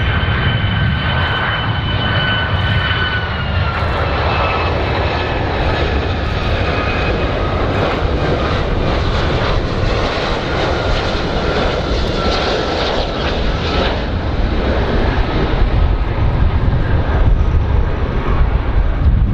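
Boeing 757 airliner's Rolls-Royce RB211 turbofan engines on landing approach: a steady jet noise with a high whine that drops in pitch a few seconds in and fades later on, the noise growing slightly louder near the end.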